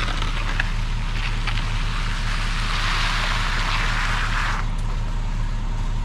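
Concrete mixer truck's diesel engine running steadily with a low drone. A rushing hiss rises over it for a couple of seconds midway.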